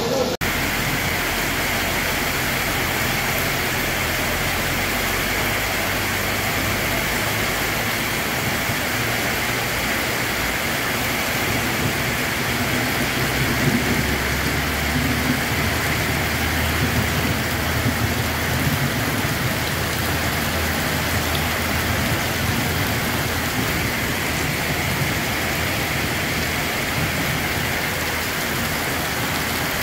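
Heavy rain pouring down onto paving and flooded, running ground: a steady, dense hiss with a low rumble underneath through the middle stretch.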